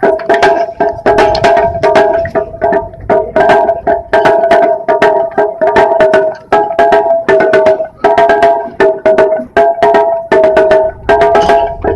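Japanese taiko drum ensemble playing: fast, dense drum strikes in a steady rhythm over a ringing tone that carries on throughout.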